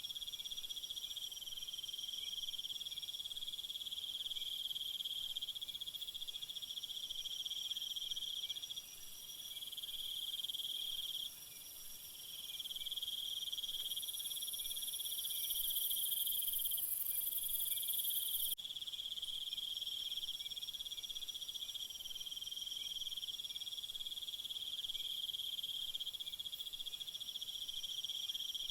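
A chorus of crickets trilling steadily, several at different pitches. A louder, very high-pitched insect buzz joins about halfway through and cuts off suddenly a few seconds later.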